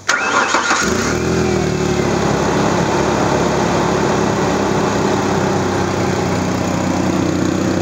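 2001 Mazda B3000's 3.0-litre V6 starting up with a newly fitted fan clutch: it catches at once, the revs rise briefly in the first second, then it settles into a steady idle.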